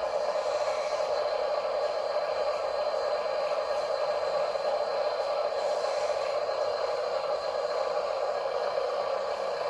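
Small RC crawler's electric motor and gearbox running steadily under drive, a constant mid-pitched whine with a faint high tone above it.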